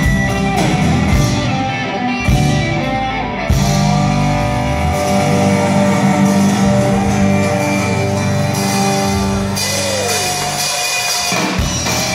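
Rock band playing live: guitars over bass and drum kit, with held notes and cymbal crashes.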